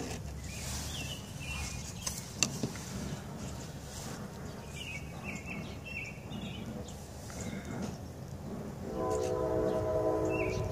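A steady low rumble with a few bird chirps, then a horn sounding one held, multi-note chord for about the last two seconds, the loudest sound here.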